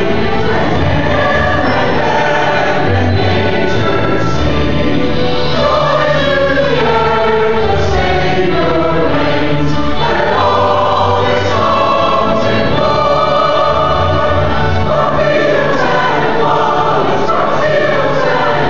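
Church choir of men and women singing a Christmas cantata in parts.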